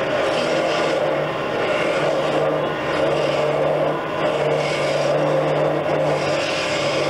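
Wood lathe running with a steady motor hum as a hand turning tool cuts a long wooden spindle, the cutting hiss swelling and fading.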